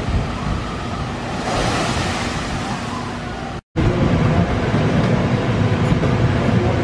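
Shoot-the-chute boat splashing down into its pool: a rushing wash of spray that swells about a second and a half in. It cuts off abruptly and gives way to the steady low rumble of a busy indoor arcade room.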